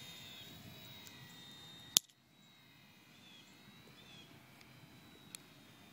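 Faint, steady high-pitched whine of a small electric RC plane's motor and propeller in flight. A single sharp click sounds about two seconds in.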